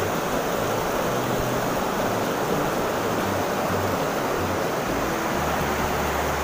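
A shallow rocky river rushing over and between boulders, a steady rush of water.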